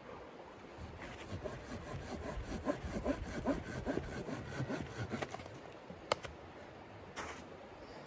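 Hand pruning saw cutting through a dead log in quick back-and-forth strokes, about three a second, stopping about five seconds in. A single sharp knock follows about a second later.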